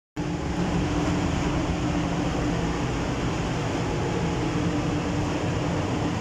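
Spray paint booth ventilation fans running: a steady rush of air with a low hum.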